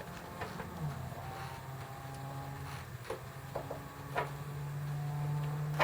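Sharp clicks from a battery-powered LED safety light's swivel mount as it is tilted downward, over a steady low hum.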